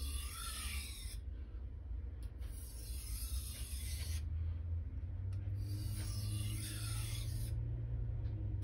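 Steel knife blade being drawn with light pressure across a Japanese whetstone, a grinding hiss in three slow strokes of about two seconds each with short pauses between. The even, consistent pitch of the hiss is what the sharpener listens to; a change in pitch would show a missed spot or an uneven angle.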